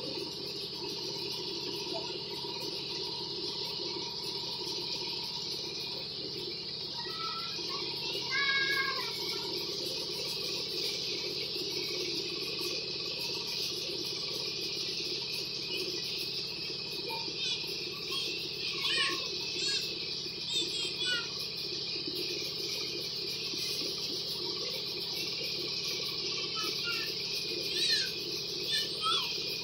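Steady drone and high hiss of rice-mill machinery running, with short chirps breaking in a few times.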